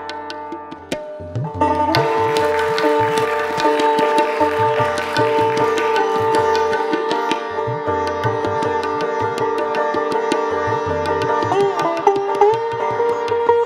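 Sitar and tabla playing Hindustani classical music: quick plucked sitar strokes over the tabla's deep bass drum strokes. The playing is quieter for the first couple of seconds, then fuller, and a sitar note is bent upward near the end.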